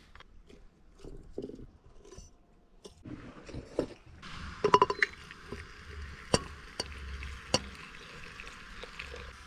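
Scattered light clinks and knocks of handling. From about four seconds in comes a steady hiss, with a few sharp clicks over it.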